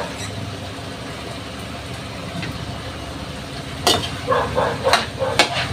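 A utensil stirring menudo in a wok, scraping and clanking against the pan in a quick run of sharp strokes starting about four seconds in, over a steady low hum.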